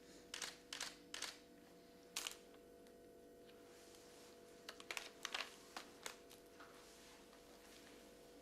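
A series of short, sharp clicks in small irregular groups, over a faint steady hum.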